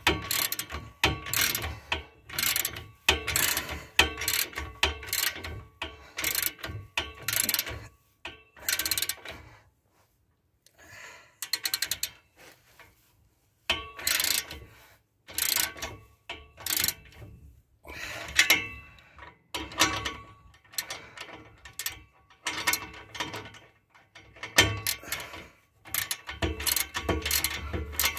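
Hand socket ratchet clicking in repeated quick strokes as it tightens the nuts of an exhaust band clamp, with a pause of a few seconds about ten seconds in.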